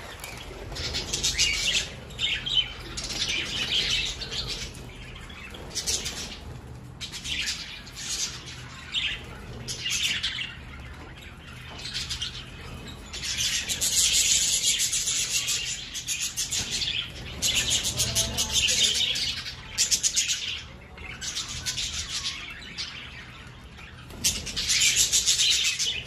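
A flock of budgerigars chattering and chirping in an aviary: busy high warbling that comes in bursts, loudest about halfway through and again near the end.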